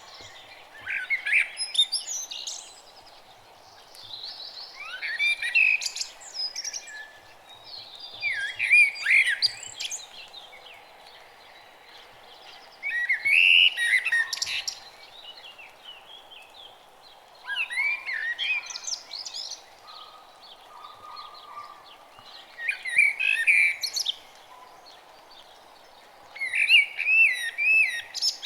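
A songbird singing short, fast warbled phrases of rapid up-and-down notes, seven phrases each about two seconds long, with pauses of a couple of seconds between them. Under it runs a faint steady low background hum.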